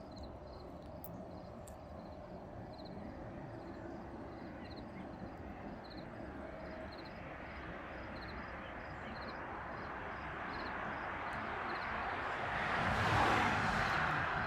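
A vehicle passing by, its noise building slowly over several seconds and peaking near the end before easing off, with faint, evenly repeating insect chirps in the background.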